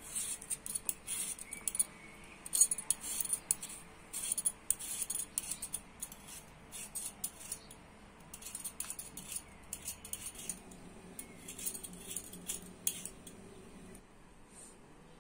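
Irregular light clicks and taps of kitchen utensils during food preparation. A faint steady hum joins in from about ten to fourteen seconds in.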